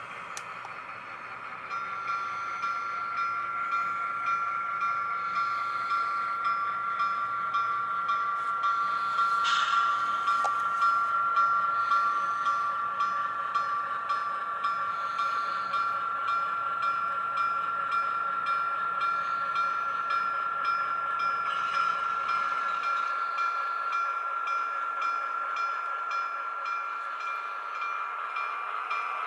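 Model Pennsylvania Railroad diesel switcher, PRR 9249, running along the layout track with a flat car in tow: a steady high-pitched hum with faint regular clicking over it.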